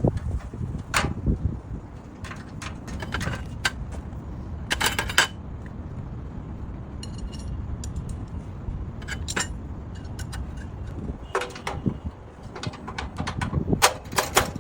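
Metal stove parts clinking and knocking as they are handled and fitted together, with a brief metallic ring about seven seconds in, over a low wind rumble on the microphone.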